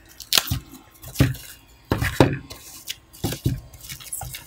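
Foam packaging sleeve being handled and its tape peeled off, making several short crinkling rustles about a second apart.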